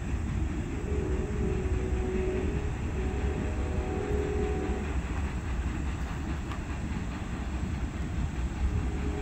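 Freight train rolling along the rails: a steady low rumble of wheels on track, with faint tones coming and going.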